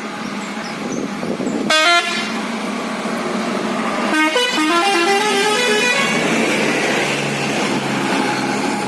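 Telolet bus horn with roof-mounted trumpets: one short blast about two seconds in, then a quick run of stepping notes, the typical telolet tune, from about four to six seconds in, over steady traffic noise.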